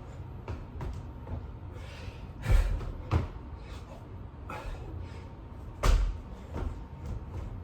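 Thuds of a person doing burpees on the floor: heavy landing thumps about 2.5, 3 and 6 seconds in, with lighter knocks between.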